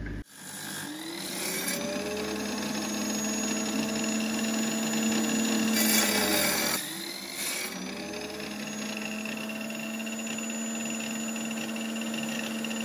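Electric bench tile saw starting up and spinning up to speed, then cutting through a soft reclaimed brick for a few seconds around the middle. When the cut ends the motor picks back up in pitch and keeps running freely.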